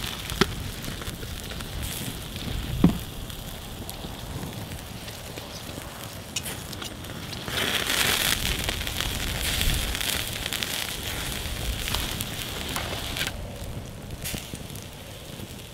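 Wood campfire burning with a steady hiss and a few sharp crackles and pops, bratwurst sizzling on a wire grill over the flames.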